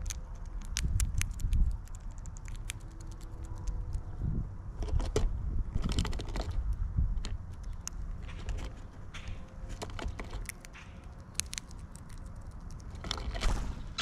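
Birds feeding at a bird feeder close to the microphone: irregular sharp clicks and taps of beaks pecking and cracking seed, with low thumps and a couple of brief rustling flurries.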